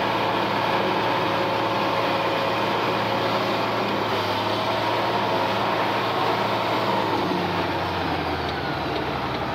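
International Harvester tractor engine running steadily under load in low gear, its note dipping slightly about three-quarters of the way through.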